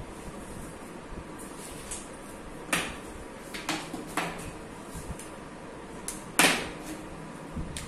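A handful of sharp knocks and clicks close to the microphone over a steady hiss, the loudest about six and a half seconds in: handling and movement sounds right beside the recording phone.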